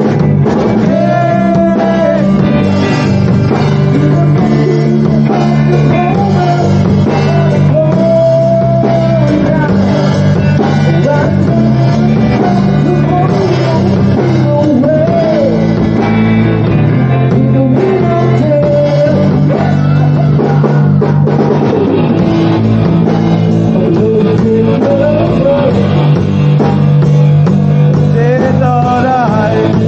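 Rock song with a sung vocal over guitar, bass and drums.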